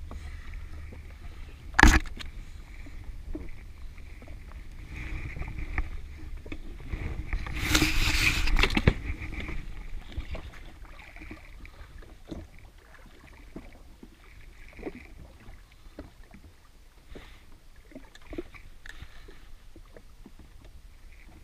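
Small waves lapping against the hull of an anchored jet ski, with scattered handling clicks and knocks from gear on board. A sharp knock about two seconds in is the loudest sound, and a louder rushing noise lasts about a second and a half around eight seconds in.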